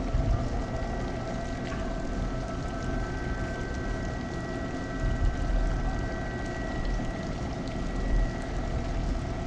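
Steady rushing and low rumbling of water moving through a boat lock chamber, with a thin steady whine over it; the higher of two whining tones stops about two-thirds of the way through.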